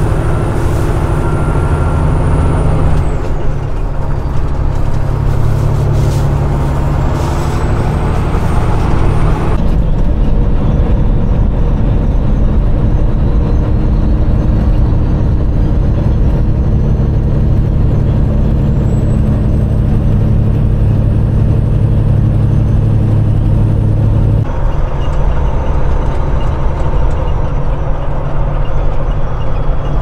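Semi truck's diesel engine running steadily at highway speed, with road and wind noise. The sound changes abruptly twice where the footage jumps.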